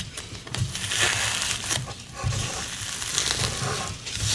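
Slime ingredients being stirred and pressed together with a silicone spatula, a crackly, sizzly mixing sound.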